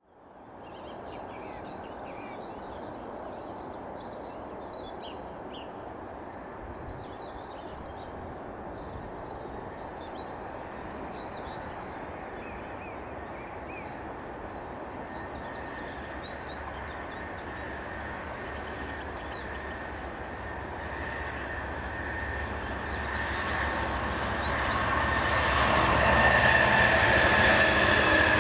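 Class 66 diesel locomotive approaching, its two-stroke V12 engine and rail noise building slowly to a loud pass with a high whine in the last few seconds. Birds chirp faintly over the first half.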